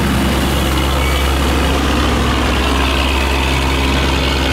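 Cargo barge's diesel engine running steadily under load against the current, a low even drone over the rush of churned water.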